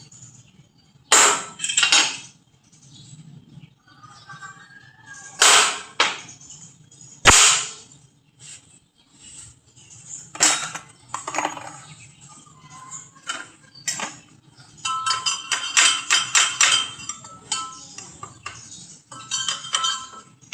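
Metal parts being worked by hand: irregular sharp clanks and knocks, then quick runs of rattling, ringing metallic taps near the end.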